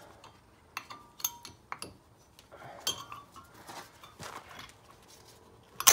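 Steel-backed brake pad and caliper clicking and clinking together as the back pad is pressed into the brake caliper by hand, with a sharp click near the end.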